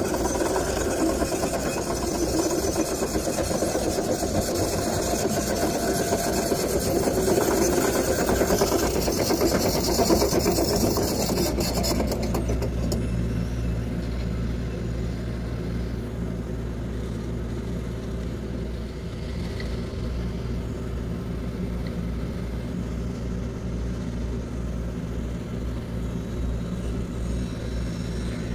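Diesel engine of site machinery running steadily at a low drone, the kind that lifts the concrete bucket. For the first dozen seconds a broad rushing noise lies over it, then stops abruptly.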